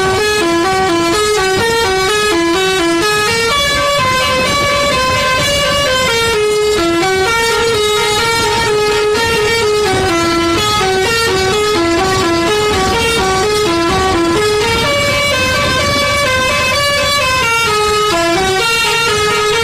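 Telolet bus horn, a multi-note air horn, playing a long, winding melody of stepped notes that changes pitch several times a second without a pause.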